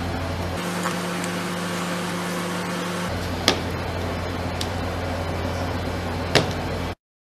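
Steady hum from the rolled-ice-cream machine's freezing plate, changing pitch twice, with sharp taps of metal utensils about three and a half and six seconds in. The sound cuts off abruptly just before the end.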